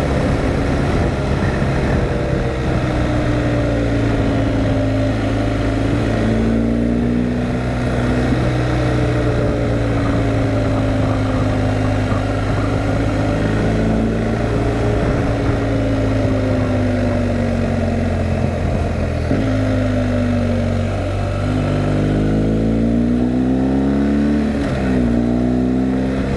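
Motorcycle engine heard from the bike while it is ridden, its revs rising and falling several times through the bends, with a quicker rise and fall near the end, over steady wind and road noise.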